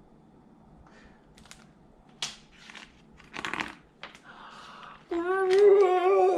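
Paper rustling and a few soft clicks as a book page is turned, then about five seconds in a woman's voice gives a long, drawn-out "roar", held on one wavering pitch, the scary noise in the story.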